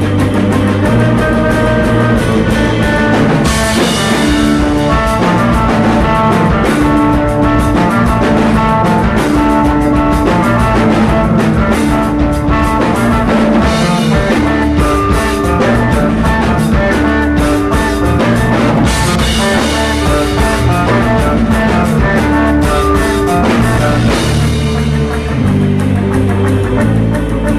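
Post-rock band playing loud live rock: electric guitars holding sustained melodic notes over bass and a drum kit with steady cymbal wash. The cymbals swell brighter twice and ease off near the end.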